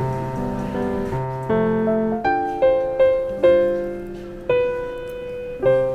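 Light instrumental background music: sustained chords, then a melody of separate struck notes that each ring and fade, starting about two seconds in.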